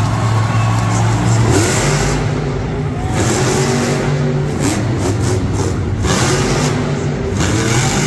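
Monster truck's supercharged V8 engine revving hard, its pitch rising and falling several times over a steady loud engine drone.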